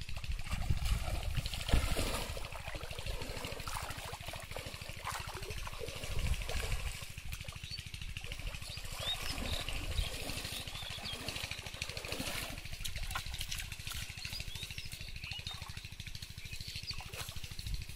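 Shallow water sloshing and trickling as a cast net and its rope are drawn in by a man wading in the water. Small birds chirp now and then over a steady low rumble.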